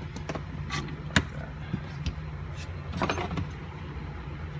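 Scattered metal clicks and scrapes of a thin hand tool working at a bushing's steel sleeve inside a cast control arm, nibbling the cut through the sleeve. There is one sharper knock about a second in and a short cluster of scrapes near three seconds.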